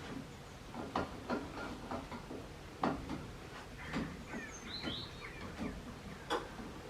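Hand tools working on a car's rear brake parts: irregular metal clicks and light knocks, with a few short high squeaks about halfway through.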